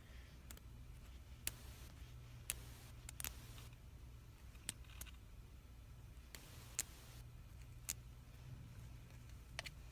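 Faint, irregular clicks and short scratches from a toothpick picking packed lint and dirt out of an iPhone's Lightning charging port, over a low steady hum.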